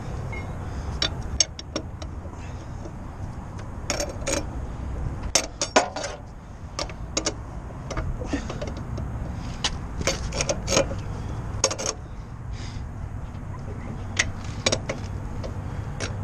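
Irregular metal clinks and clicks of a hand lug wrench working the lug nuts on a truck's dual rear wheel, over a steady low rumble.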